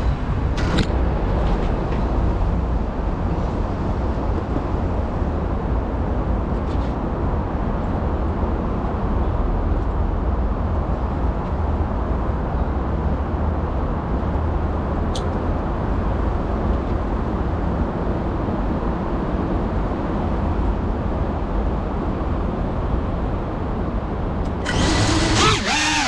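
A steady low noise with no clear tone. About a second and a half before the end, the FPV drone's motors and propellers spin up with a sudden loud whine whose pitch shifts.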